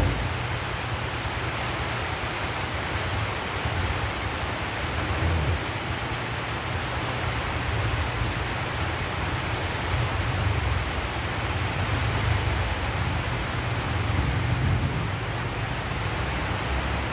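Steady rain drumming on a corrugated zinc roof, an even hiss with a low, swelling rumble underneath.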